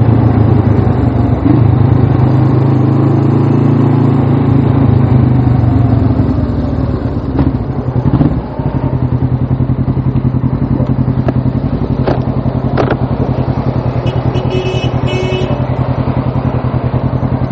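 Suzuki GS500's air-cooled parallel-twin engine running at raised revs, then dropping after about eight seconds to a lower, steady, evenly pulsing speed. The engine is being run to recharge its weak battery.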